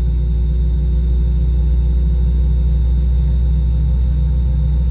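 Airbus A320 passenger cabin noise: a steady, loud, low rumble of the jet engines and rushing air, with a few faint steady hums above it.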